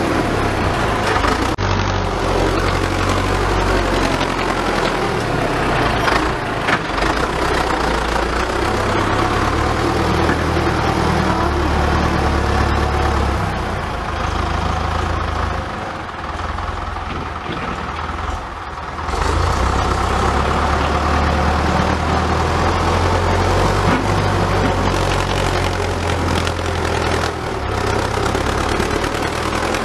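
Farm tractor engine running steadily under load as its front dozer blade pushes soil and rock, dropping quieter for a few seconds past the middle before pulling hard again.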